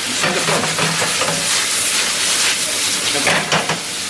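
Squid rings and halved cherry tomatoes sizzling in a copper frying pan over a gas flame, a steady hiss that swells in the middle. The tomatoes have just gone in, after the cooking water has dried off.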